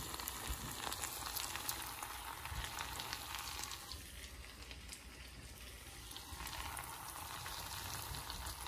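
Cooking food sizzling, a steady hiss with small crackles, a little quieter for a couple of seconds around the middle.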